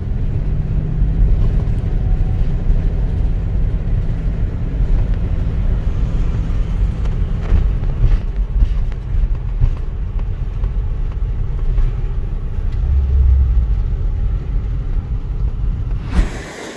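Steady low engine and road rumble of a moving vehicle, heard from inside its cabin, with a brief louder rumble about 13 seconds in and a sudden bump just before it cuts off near the end.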